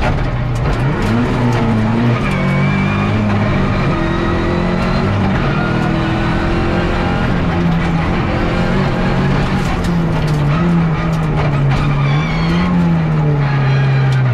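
Peugeot 207 R3 rally car engine, heard loud from inside the cabin, driven hard with its pitch rising and dropping again and again as the car accelerates and slows along the stage.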